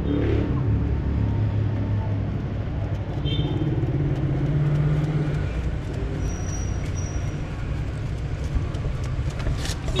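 Steady low engine-like rumble of a motor vehicle running, with a brief faint high chirp about three seconds in and a thin high whistle around six to seven seconds.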